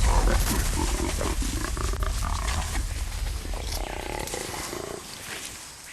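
A captured jaguar growling, loud at the start and slowly dying away over several seconds.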